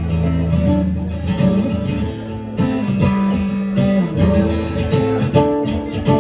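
Guitar-led live music with no singing: strummed guitar chords over a moving bass line.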